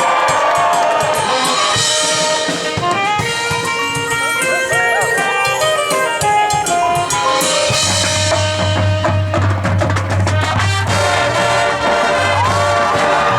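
High school marching band playing: brass and drumline together, with quick runs of notes in the first half. About two-thirds of the way through, a low held bass note comes in under sharp drum strokes.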